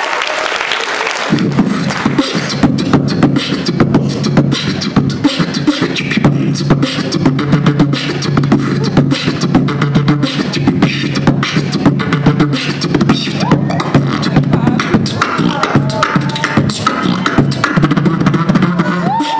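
Live beatboxing into a microphone: a low hummed bass line under fast rhythmic snare and hi-hat clicks, kicking in about a second in after crowd noise. Near the end, rising and falling vocal tones are laid over the beat.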